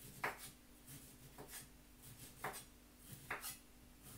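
Faint knife strokes cutting the skin off a lemon: several short scraping cuts, about one a second.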